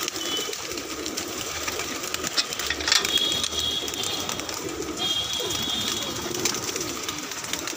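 A loft full of domestic pigeons cooing together, a continuous low wavering murmur. There is one sharp knock about three seconds in.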